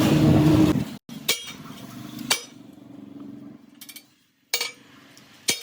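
Sharp metal knocks, about four of them a second or two apart, typical of hammer blows on a steel truck rim being worked. They follow a louder rough stretch that stops abruptly under a second in.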